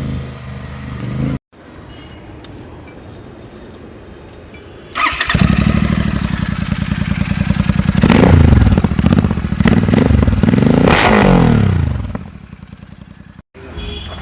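Royal Enfield Continental GT 650's parallel-twin engine running with its exhaust removed, so the firing pulses come straight out of the open header pipes. It idles with a fast, even pulse, then gets loud and is revved up and down several times in quick succession. The sound breaks off abruptly twice.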